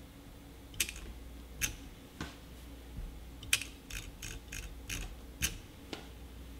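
Scroll wheel of an opened Logitech MX Master mouse flicked by finger: about ten sharp, irregular clicks, closer together in the second half, as the SmartShift ratchet lets the wheel free-spin and re-engages when it slows.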